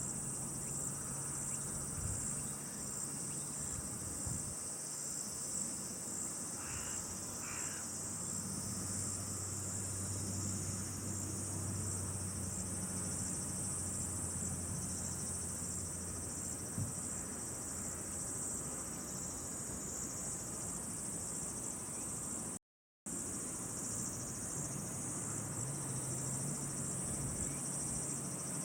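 A steady, high-pitched outdoor chorus of insects chirping continuously, with the sound cutting out abruptly for about half a second around two-thirds of the way through.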